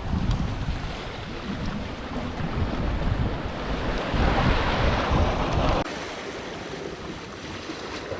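Wind buffeting the microphone over the wash of sea waves, with a louder surge of surf in the middle; the low wind rumble cuts off suddenly about two-thirds of the way through.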